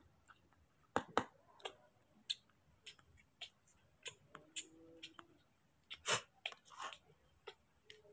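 A newborn baby monkey being spoon-fed: irregular wet clicks and smacks of its mouth at the spoon, the loudest about six seconds in.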